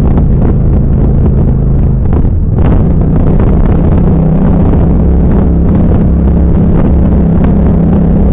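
Yamaha FZ-07's parallel-twin engine with a Two Brothers aftermarket exhaust, running steadily under way with wind noise over the microphone. About two and a half seconds in the engine note breaks off and settles at a slightly different pitch.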